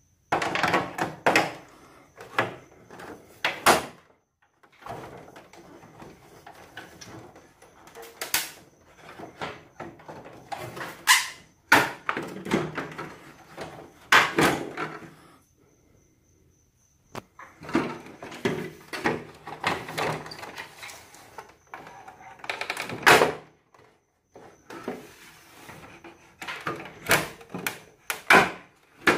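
Irregular knocks, clicks and clatter of objects being handled, in clusters with short pauses between, under a faint steady high tone.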